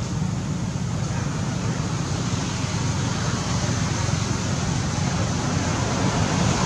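Steady outdoor background noise: a continuous low rumble with hiss, like distant road traffic, with no distinct event standing out.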